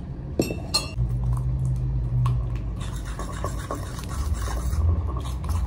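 A fork stirring a wet batter of egg, oat flour, grated carrot and chopped tomato in a ceramic plate, with quick small clicks and scrapes of the fork against the plate. Two sharp knocks come about half a second in.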